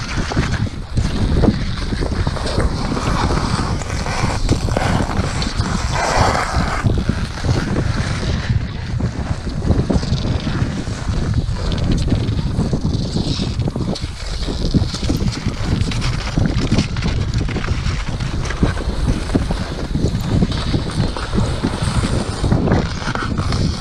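Strong wind buffeting the microphone: a loud, continuous low rumble with hiss that swells and dips in irregular gusts.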